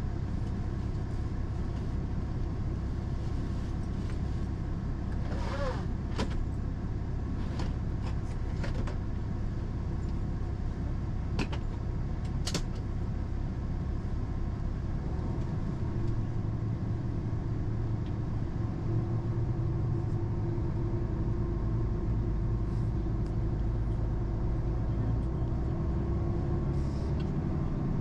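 Passenger train running, heard from inside the carriage: a steady low rumble with a few sharp clicks and creaks about six and twelve seconds in. A steady low hum from the running gear grows stronger about halfway through.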